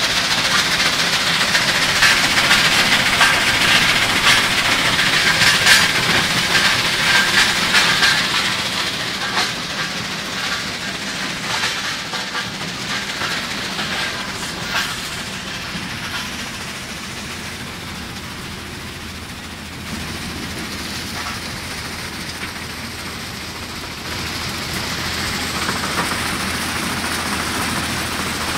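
Rock-crushing plant running: a steady mechanical noise of conveyors and machinery, with rocks clattering and knocking as they tumble off the belts. The clatter is busiest in the first several seconds, then the sound settles to a quieter, steadier run.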